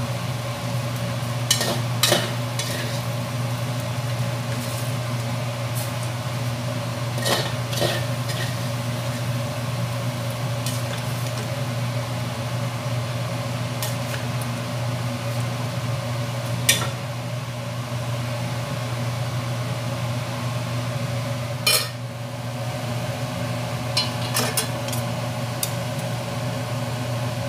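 Ginger and duck frying in a wok beside a pot of duck soup on a gas stove: a steady sizzle and bubbling over a steady low hum. A metal spatula and ladle clink against the wok and pot now and then as they are stirred.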